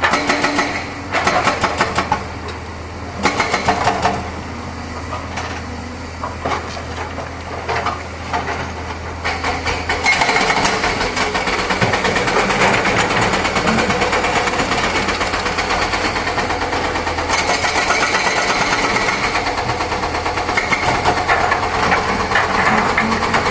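Hydraulic excavator's diesel engine running, with short loud knocks coming and going in the first half; about ten seconds in it becomes louder and steady, as under load.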